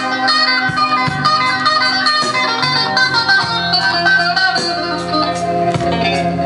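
Music from a vinyl record played on an Akai AP-1000 turntable, heard through the amplifier's speakers.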